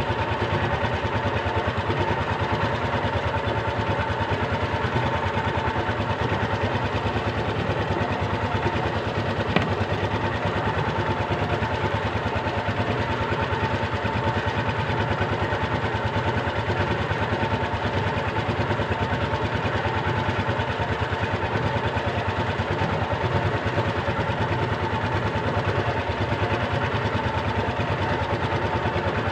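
Small wooden fishing boat's engine running steadily at an even speed. One short click about ten seconds in.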